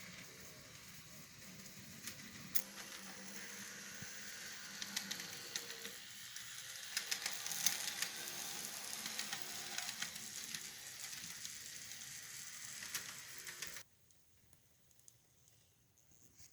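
A steady hiss with many small clicks and crackles, swelling in the middle, which cuts off abruptly near the end.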